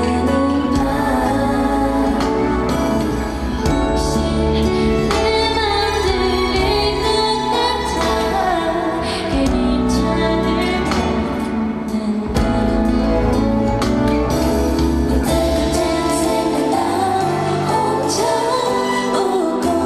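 Live singing of a slow K-pop ballad: female vocalists taking turns on handheld microphones over a soft backing track with a steady bass line.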